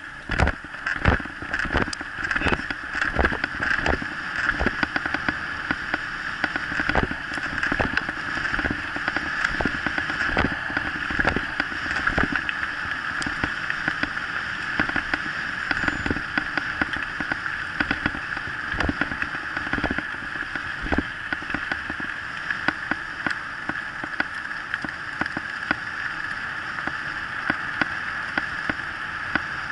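Kick scooter rolling fast over a dirt and gravel track behind a pulling dog, a steady rushing rumble with frequent knocks and rattles from bumps, most of them in the first half.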